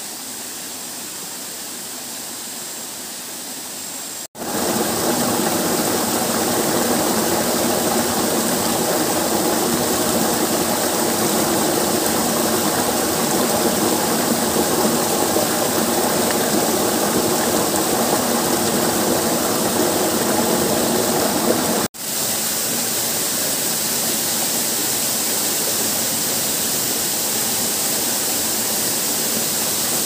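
Steady rush of a waterfall and of a stream cascading over boulders. The sound cuts abruptly about four seconds in to a louder, closer rush of water, and cuts again a little past twenty seconds to a slightly quieter rush.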